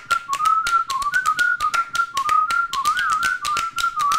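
A short tune whistled in one clear, wavering tone, over a quick, uneven run of sharp taps.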